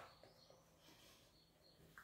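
Near silence: room tone, with a couple of faint short ticks.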